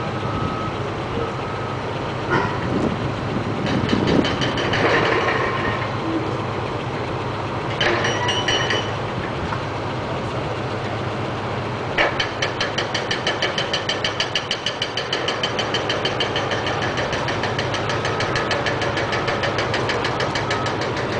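Small tug's twin Detroit Diesel two-stroke engines running steadily at idle. A few short clanks come in the first nine seconds, then a sharp knock about twelve seconds in, after which a fast rhythmic clatter runs over the engine sound.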